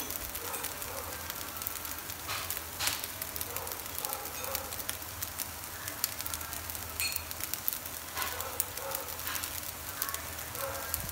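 Shrimp fried rice sizzling in a nonstick frying pan, a steady fine crackle.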